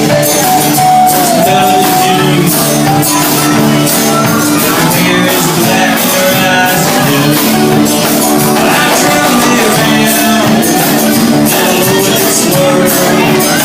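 Live band playing loud music.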